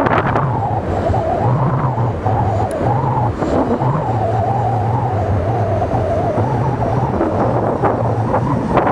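CAT Challenger RG655D Rogator self-propelled sprayer working in the field, its diesel engine running steadily with a wavering mid-pitched whine over a low hum. Wind buffets the microphone at the start and again near the end.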